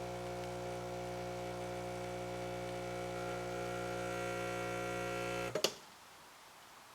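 Espresso machine's vibration pump running with a steady hum while pulling a shot, then cutting off with a click about five and a half seconds in as the shot ends.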